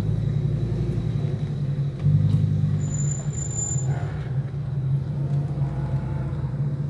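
Fiat Marea 2.4's five-cylinder engine running at low speed in slow traffic, a steady low hum. A brief high-pitched squeal sounds about three seconds in.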